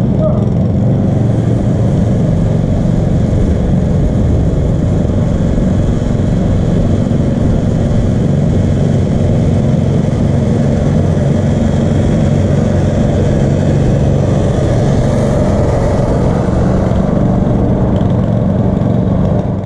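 Two small Honda petrol engines running together, one on a cylinder (reel) mower and one on a rotary mower, as both mow at speed. A steady engine drone.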